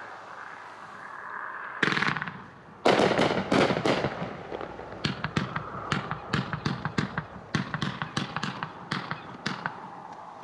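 Color Fish, a 36-shot consumer fireworks cake, firing. A loud report comes about two seconds in and a louder one about three seconds in, followed by a rapid string of sharp pops and crackles that runs until shortly before the end, over a faint hiss.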